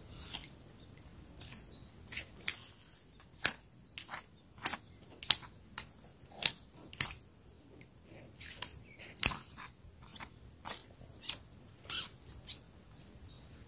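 Irregular sharp clicks and ticks, about twenty of them spread unevenly, a few much louder than the rest, over a faint background.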